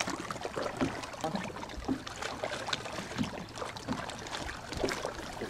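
Small waves lapping against the hull of a fishing boat, with scattered light knocks and splashes.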